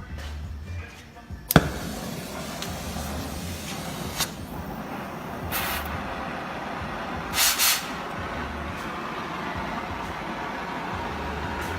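Oxy-acetylene torch lit with a sharp pop about a second and a half in, then a steady hissing flame heating rusted exhaust bolts. There are two brief louder hisses around the middle.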